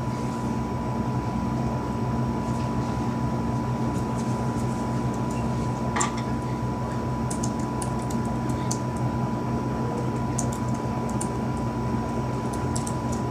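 A steady mechanical hum with a constant high whine over a low drone, and a few faint clicks about halfway through and later on.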